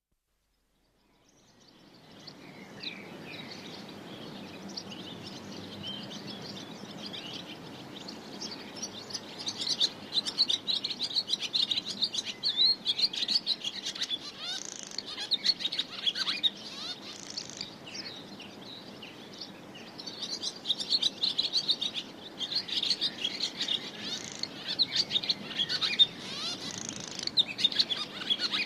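Many small birds chirping together in a dense chorus of short, high calls over a steady low background noise. It fades in from silence about a second in and grows busier and louder in stretches.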